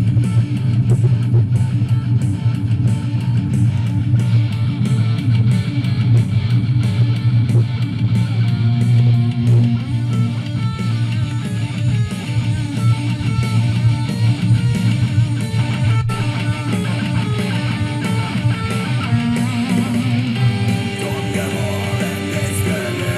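Guitar-driven music played loud through an OTIC 2.1 soundbar and its wireless subwoofer, with a strong, steady bass.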